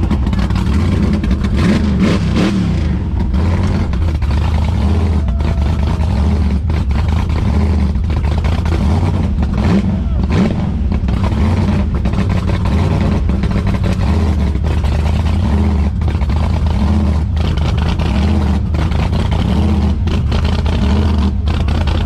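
Supercharged LS V8 in a burnout truck running loudly and steadily at idle with an uneven, choppy beat.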